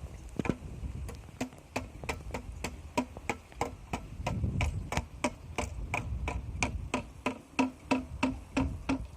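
Percussive background music: a wood-block-like tick repeating steadily about three or four times a second, over a low rumble.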